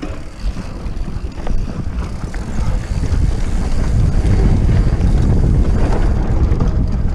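Wind buffeting the mountain bike's camera microphone along with the rumble of the knobby tyres and bike over a dry dirt trail, louder from about three seconds in.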